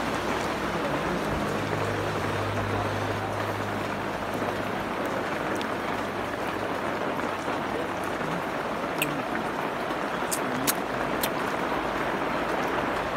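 Steady rushing background noise, with a few sharp clicks in the second half.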